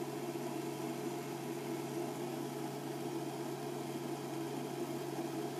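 Steady hum of a portable induction hotplate running at full power, with the hiss of water in a saucepan heating to just short of the boil, small bubbles rising.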